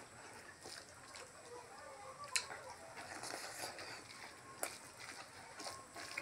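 Eating sounds of chewing and lip-smacking over rice and pork curry eaten by hand, with a sharp click a little over two seconds in and another about four and a half seconds in.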